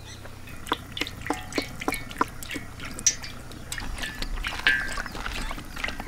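Vegetable oil poured from a plastic jerrycan into a black iron kadai, glugging and splashing in quick, irregular spurts.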